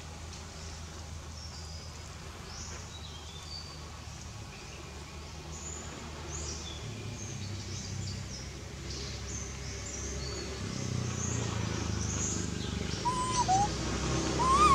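Small birds chirping, many short high calls scattered throughout, over a steady low rumble. Near the end come a few louder short squeaks that rise and fall in pitch.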